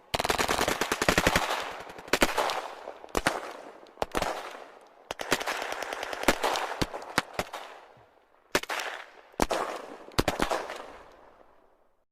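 Gunfire: rapid bursts of automatic fire mixed with single shots, each followed by an echoing tail. The shooting fades out near the end.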